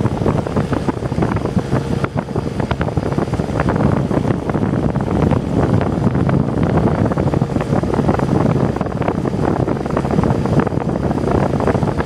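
Magic Chef 25-pint dehumidifier running, a steady rushing of air with wind buffeting the microphone. Its failing fan motor turns the fan much slower than it should.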